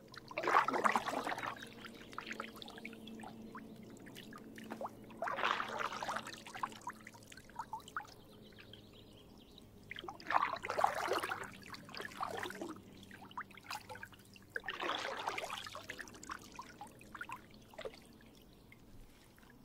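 Kayak paddle strokes in calm water: a splash and pour of water from the blade about every five seconds, four strokes in all, with light drips and trickles between them.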